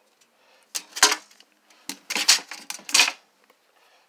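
Steel tape measure being handled over a plywood shelf and a 2x4: three short metallic clattering rattles with sharp clicks, about a second apart.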